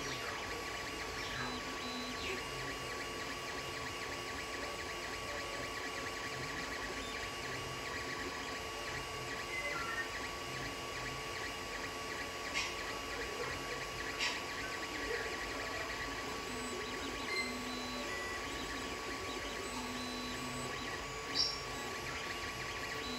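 Creality Ender 3 3D printer printing: its cooling fans hum steadily while the stepper motors whine in short moves of a second or so as the print head traces the layer, with a few clicks.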